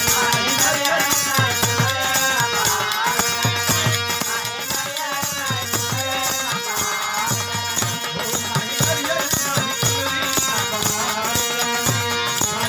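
Live Bhojpuri devotional folk song: a man's voice singing over a steady, rhythmic hand-drum beat with accompanying melody.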